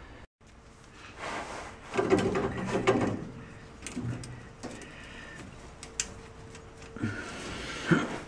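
Locking pliers being handled, adjusted and clamped onto the steel shift rod of a 1964 VW bus: clusters of metallic clicks and clanks, the busiest about a second or two in and again near the end.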